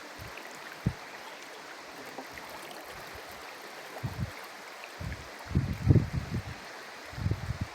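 River water rushing steadily over stones, with a few short low rumbles about a second in, around four seconds in, and again over the last two seconds.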